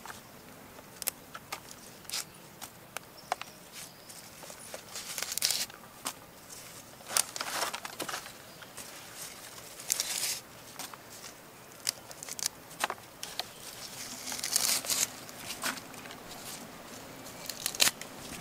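Fresh leaves and herbs rustling and crinkling as they are handled and pressed into a clay pot, in several short bouts with scattered small clicks between them.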